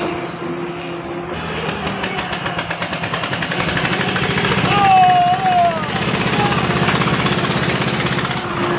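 A machine with a fast, even pulsing starts about a second in, runs loudly and stops near the end: machinery at work on a concrete slab.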